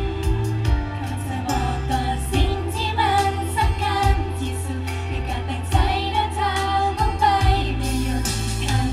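Thai idol-pop song performed live over the stage loudspeakers: several female voices sing a melody over a steady bass and drum backing.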